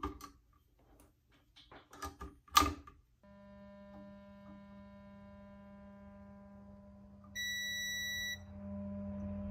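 A few clicks and knocks of handling on the amplifier's circuit board, then the Peavey Standard Mark III amplifier under test puts out a steady low buzzing tone. A single high electronic beep lasts about a second, past the middle, and a hiss comes up near the end.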